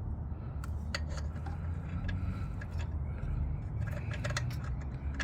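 Light metallic clicks, taps and scrapes of a Fumoto drain valve being fitted by hand at the oil pan drain, knocking against the loosened heat shield, over a steady low hum.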